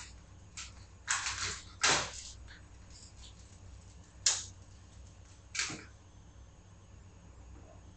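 Short scratchy strokes of a crayon on paper at a tabletop, four or five of them spaced unevenly through the first six seconds, over a low steady room hum.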